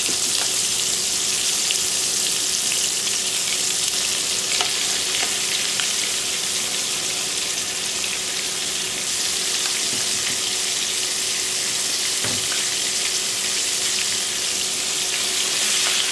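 Flour-dredged rabbit pieces deep-frying in hot oil in a stainless steel pot: a steady, dense sizzle. A few light metal clicks come from the tongs moving the pieces.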